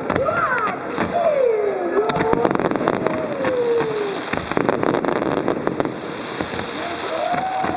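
Aerial fireworks crackling, a dense run of rapid pops thickest about two to three seconds in, with falling gliding tones heard through it.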